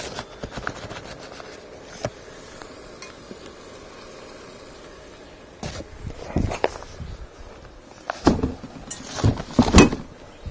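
A utensil clinking and scraping against a metal springform pan as a cup of flour goes into the wet peach mixture. A few short knocks come near the start, then a busier run of knocks and scrapes in the second half.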